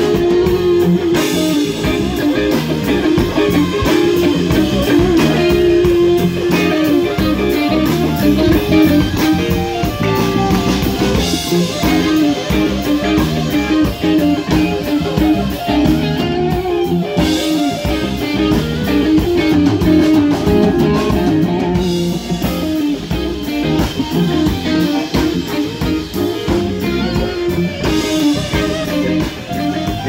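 Live rock band playing: electric guitars over bass guitar and drum kit.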